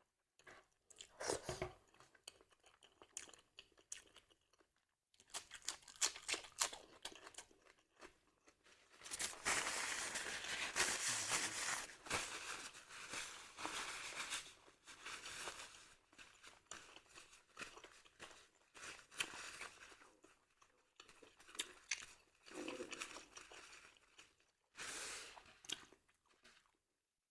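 A person chewing and biting crunchy raw food close to the microphone, with many sharp crunches. The crunching is densest for several seconds in the middle, with short pauses before and after.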